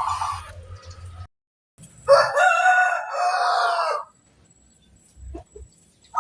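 A rooster crows once, for about two seconds in the middle. Short cooing notes from the zebra doves are heard at the start.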